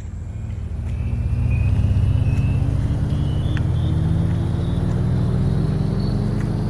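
A vehicle engine coming closer and growing louder over the first couple of seconds, then running steadily. Its pitch rises slowly as it speeds up, with a faint high whine rising with it.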